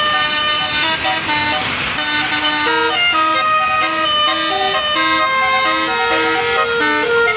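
An Indonesian bus's 'basuri' telolet horn, a multi-trumpet air horn, playing a quick melody of short, steady notes, with several horn notes often sounding together.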